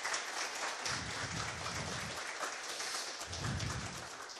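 Audience applauding: dense, even clapping that starts to fade near the end.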